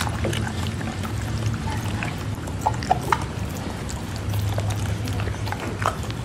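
A dog chewing and smacking wet mouthfuls of catfish taken from a hand: a run of short, irregular wet clicks and smacks.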